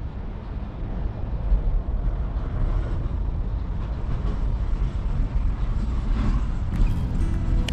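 Wind buffeting the microphone: a steady, gusting low rumble.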